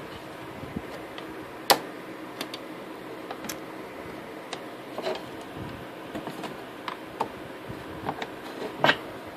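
Scattered small clicks and taps of a circuit board and a clear plastic case being handled and pressed into place, with one sharper click about two seconds in and another near the end, over a steady faint hiss.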